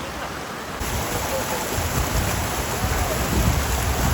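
Steady rush of a waterfall's falling water. From about two seconds in, a low rumble of wind on the microphone joins it.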